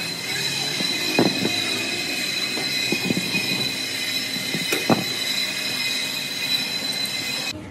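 Steady high-pitched mechanical whine of a workshop machine, with a few short metallic knocks; it cuts off suddenly near the end.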